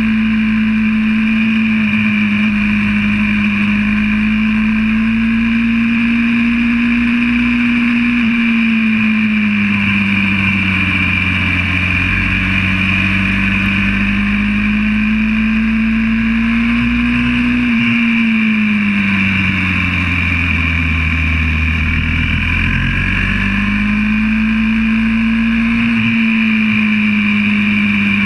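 YCF 125cc pit bike's single-cylinder four-stroke engine running hard on track, its pitch climbing as it pulls down each straight and dropping three times as the rider backs off for corners.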